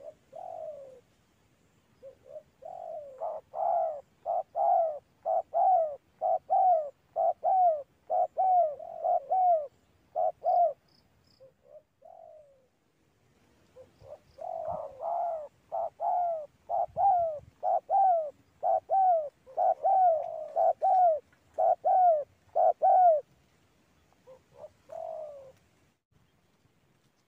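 Spotted dove (tekukur) cooing in long series of short repeated notes, about two a second, in two bouts with a pause of about three seconds between and a brief few notes near the end. This is the call pattern that dove keepers call 'neken'.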